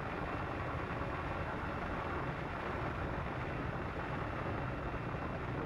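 Steady background room noise: a low hum and hiss with no distinct events.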